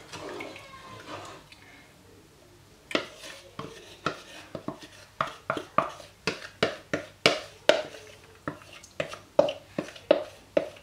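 Repeated sharp tapping on a plastic measuring jug held over a saucepan, knocking out the last of the wet cornmeal. It starts about three seconds in and goes on irregularly at about two or three taps a second.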